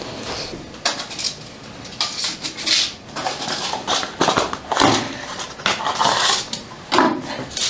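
Handling noises: scattered sharp clicks and several short rustling scrapes, the strongest near the middle and toward the end.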